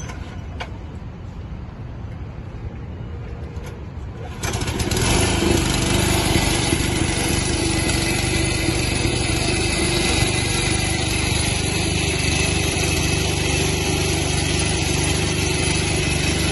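Small engine of a hydraulic power pack driving a rail weld trimmer, cutting in abruptly about four seconds in and then running steadily and loud. Before that there is a quieter low rumble.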